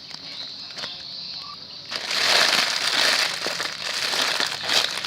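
Plastic packaging of a squishy toy crinkling and rustling as it is handled close to the microphone, faint at first, then loud and dense from about two seconds in for about three seconds.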